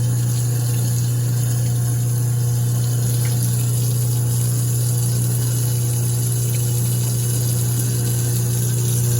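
Garbage disposal running with a steady low hum while a thin stream of tap water runs into the drain, during a cleaning cycle with a disposal cleaner packet.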